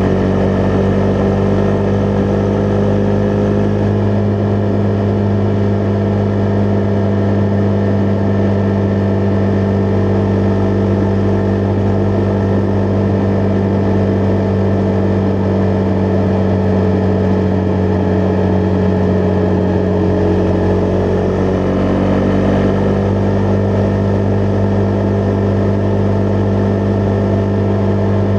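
Husqvarna Vitpilen 401's single-cylinder engine running at steady revs while the motorcycle cruises, with a slight change in engine note about 22 seconds in.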